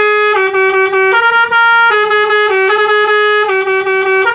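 Basuri V3 telolet horn playing one of its tunes: a chain of held, brassy notes stepping back and forth between higher and lower pitches without a break.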